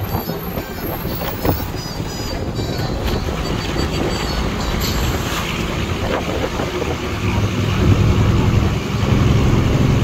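Road and engine noise heard from inside a moving vehicle, with a low engine hum that grows stronger about seven seconds in.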